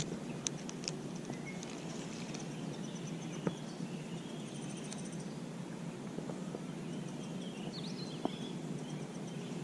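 Outdoor ambience: a steady low background noise with small birds chirping here and there, and a few brief clicks, most of them in the first second.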